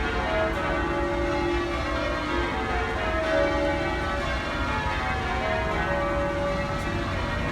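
Church tower bells ringing in sequence, many bell notes overlapping without a break: the bells rung to call people to the Sunday service.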